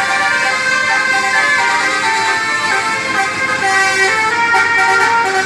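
Bus 'telolet basuri' musical air horns playing a tune: held horn notes stepping from pitch to pitch, several sounding at once.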